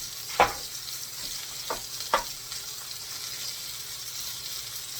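Homemade veal searing on a hot grill, with a steady high sizzle. Three short knocks, the loudest about half a second in, the others near two seconds in.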